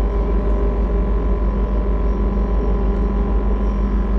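Steady low rumble with an even droning hum from the diesel engines of a tugboat pushing a barge close by.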